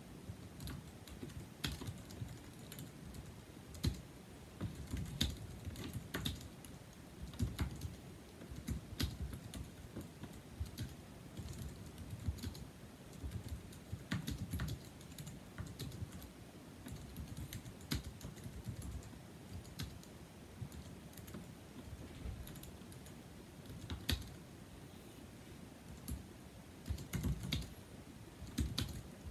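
Continuous typing on a 2007 Apple Aluminum keyboard with numeric keypad (A1243), its low-profile scissor-switch keys giving quick, soft clicks in irregular runs, with a few sharper strokes standing out.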